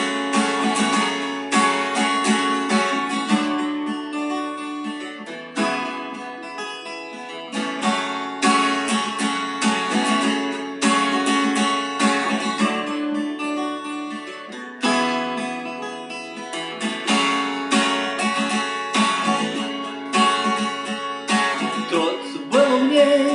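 Acoustic guitar strumming chords as an instrumental passage, with no singing.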